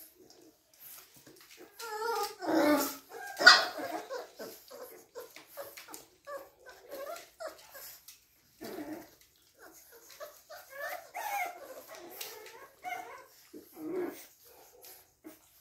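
Boxer puppies giving many short barks and whimpers as they wrestle in a wire crate, loudest about three seconds in.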